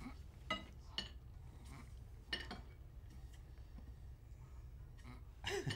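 Maltesers dropping into a ceramic bowl: a few light clinks, about half a second, one second and two and a half seconds in, some with a brief ring, over a low steady hum.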